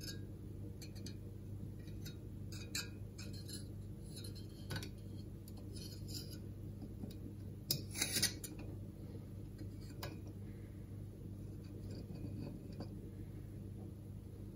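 Homemade air-spaced variable capacitor, aluminium plates on an M4 threaded-bar shaft, turned by hand: scattered light metallic clinks and scrapes, loudest in a short cluster about eight seconds in, over a steady low hum.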